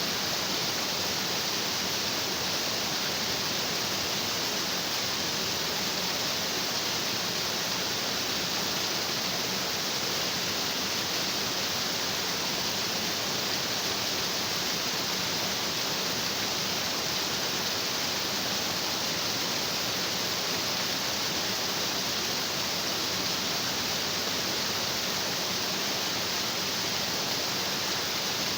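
A stream rushing over rocks: a steady, unbroken hiss of water.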